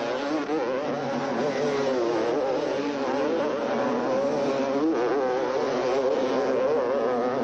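Several 250cc two-stroke motocross bikes racing, their engines revving up and down as they overlap, with the high, buzzing note of two-strokes.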